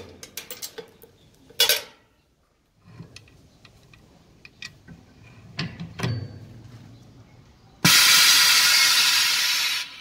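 Pneumatic brake shoe riveting machine working: scattered light metallic clicks and a thud, then a loud hiss of compressed air for about two seconds near the end.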